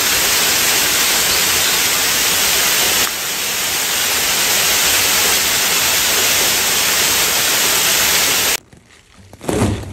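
Water cascading down a rock wall, a steady loud rushing that cuts off abruptly near the end.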